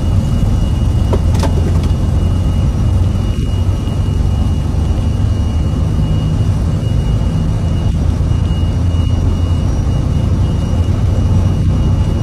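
Airbus A330-900neo's twin Rolls-Royce Trent 7000 turbofans at take-off thrust as the jet lifts off and climbs away. The sound is a steady, deep jet rumble with a thin high tone over it.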